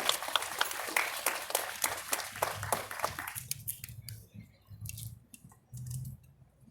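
Crowd applauding after someone is introduced to speak, dense clapping that dies away about three and a half seconds in, leaving a few scattered claps and faint low thumps.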